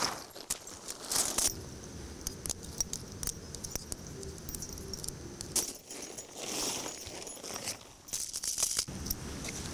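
Tent fabric rustling and crinkling as it is handled and spread out, with scattered small clicks and knocks, in irregular bursts.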